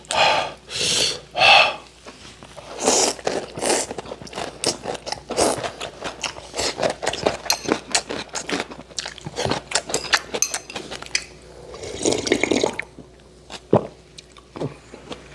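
Close-up eating sounds: ramen noodles slurped in a few quick bursts, then wet chewing and lip smacking. About twelve seconds in comes a longer slurp as the broth is sipped from the bowl.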